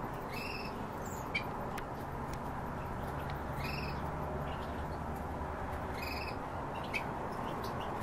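Cage birds calling: a short call, repeated about every two and a half seconds, with a few brief sharp chirps in between, over a steady low background noise.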